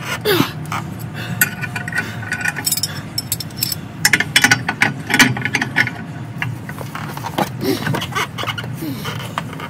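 A wrench turning the forcing screw of a torsion bar unloading tool on a truck's torsion-bar front suspension: metal clicks and clinks, with a dense run of them about four seconds in and a few short squeaks.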